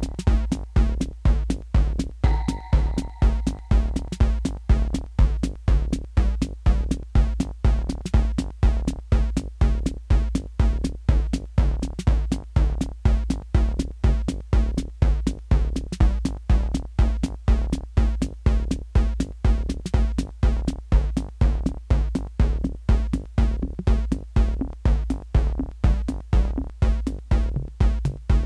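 Live techno from hardware drum machines and analogue synthesizers: a steady four-on-the-floor kick drum at about two beats a second under a pulsing synth bass line. A short higher synth note sounds twice in the first few seconds.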